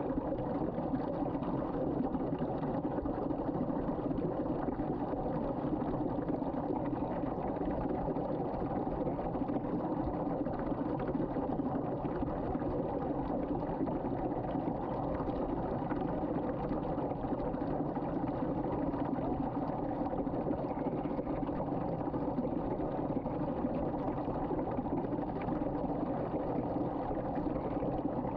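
Water swirling in a vortex down a sink drain, a steady rushing of draining water.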